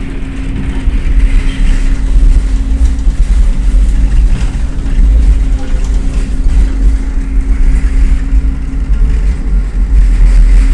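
Inside a FIAT Ferroviaria Cityway articulated tram as it runs along the street: a heavy, steady rumble of the car and its wheels on the rails, with a steady hum under it. It grows louder over the first two seconds as the tram gets under way, then holds steady.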